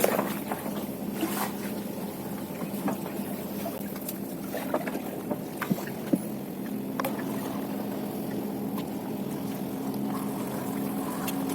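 A small boat motor runs steadily with a low hum that grows a little stronger partway through. Scattered clicks and knocks sound over it.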